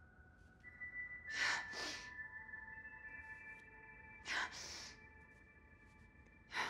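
Quiet ambient film score of sustained high held tones, with a woman's breaths heard three times: about a second and a half in, around four and a half seconds in, and at the end.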